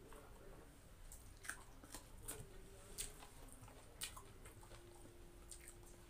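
Faint close-up chewing and biting, with about ten sharp, irregular crunchy mouth clicks over a few seconds.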